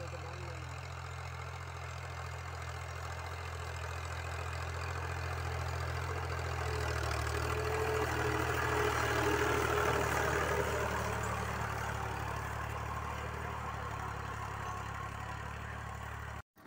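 Al-Ghazi farm tractor's diesel engine running steadily under load while pulling an 11-tine cultivator through ploughed soil. It grows louder as the tractor comes close about halfway through, then fades as it moves away, and it cuts off abruptly just before the end.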